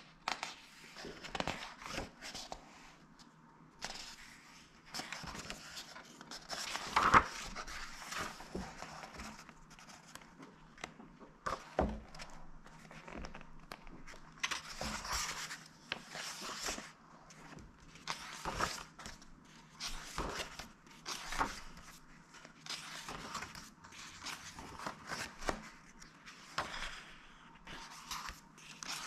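Pages of a softcover cookbook being turned by hand: repeated paper swishes and rustles with light taps as pages flip over and settle, the loudest about seven seconds in.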